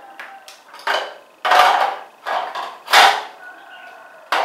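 Hard plastic knocks and clatter, about five in a row, as toothbrushes and a toothpaste tube are pushed into a wall-mounted plastic toothbrush holder.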